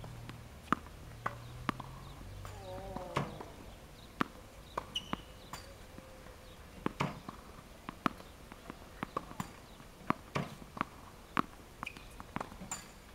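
Tennis balls fed by a ball machine bouncing on a hard court: a string of sharp, irregular knocks, some coming in quick pairs.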